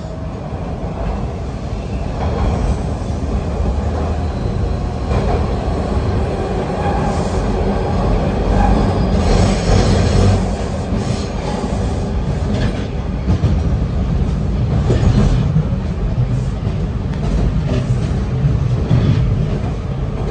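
TTC T-1 subway car with GTO-VVVF AC traction motors, heard from inside the car as it pulls away from the station and picks up speed. There is a steady low rumble of wheels on rail, scattered clicks over rail joints, and some wheel squeal.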